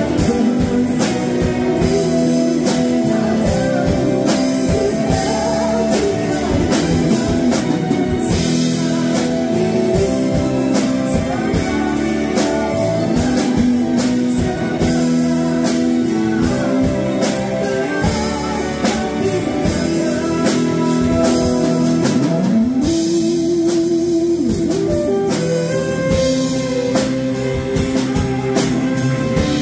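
A band playing a song, with guitar and drum kit and a singing voice.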